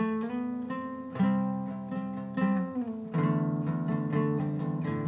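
Acoustic guitar strumming chords, changing chord about a second in and again about three seconds in.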